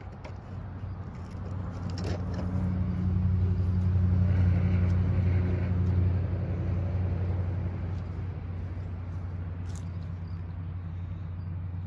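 A motor engine running with a low steady hum, growing louder about two seconds in and easing off again after about six seconds, like a vehicle passing nearby.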